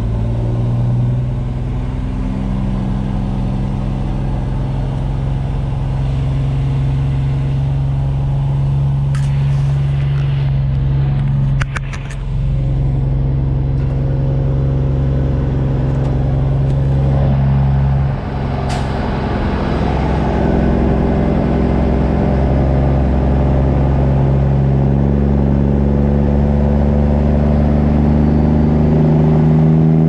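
Peterbilt 389 semi-truck's diesel engine pulling away and working up through the gears. The sound drops out briefly at shifts about 12 and 18 seconds in, with a few clicks around the first shift, and the engine note climbs steadily in pitch toward the end.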